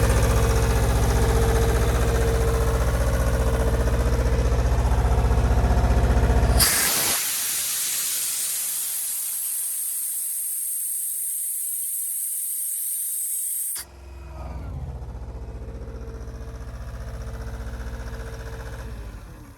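Atlas Copco XAS 57 DD portable compressor's two-cylinder Deutz diesel engine running steadily. About seven seconds in, a loud steady hiss of compressed air venting takes over for about seven seconds. It stops suddenly, the engine hum returns more quietly, and it winds down just before the end.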